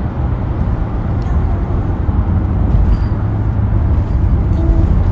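Steady low rumble of a moving car's road and engine noise, heard inside the car's cabin.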